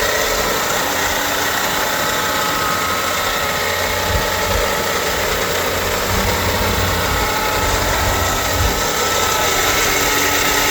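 Chevrolet Vortec 350 small-block V8 in a restored 1955 Chevrolet 3100 pickup idling steadily.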